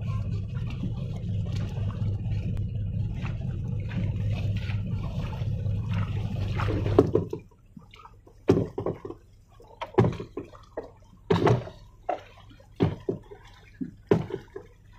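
Outrigger boat's engine idling with a steady low hum that stops abruptly about halfway. After that, water splashes and slaps against the hull and the bamboo float about every second and a half.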